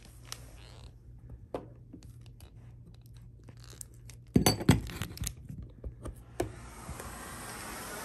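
Plastic clicks and clacks as a hose cuff is pushed into a central vacuum's wall inlet, the loudest a quick cluster of sharp clacks about halfway through. Near the end the central vacuum's suction starts as a steady airy hiss that grows louder.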